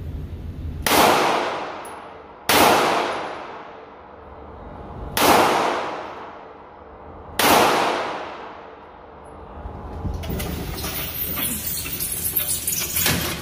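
Four gunshots at a shooting range, fired one at a time a couple of seconds apart, each echoing and fading away. Near the end there are about three seconds of dense, rough noise.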